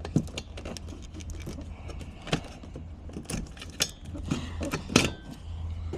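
Irregular metallic clinks, taps and knocks of hand tools and metal parts being handled, the loudest about five seconds in, over a steady low hum.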